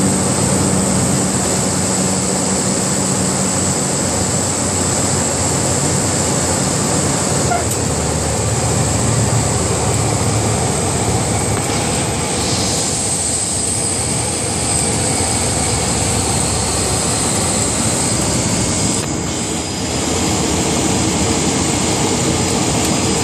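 Cabin noise of a light propeller aircraft rolling out on the runway after landing: a steady engine and propeller drone with a high steady whine, dipping briefly in level about nineteen seconds in.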